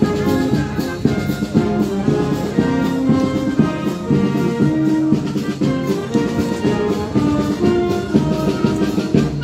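Brass band playing, with drums keeping the beat.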